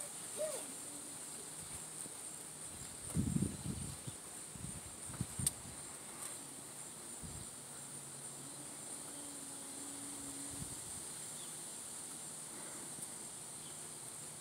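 Insects trilling steadily in one high, unbroken drone. A few low bumps on the microphone come about three to five seconds in.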